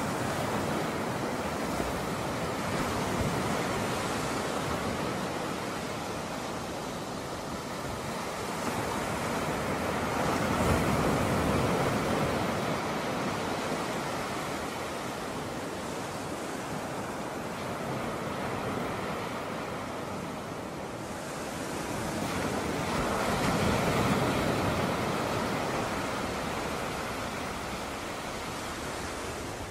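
Waves washing onto the shore in a steady rushing wash that swells louder twice, about a third of the way in and again about three quarters of the way through.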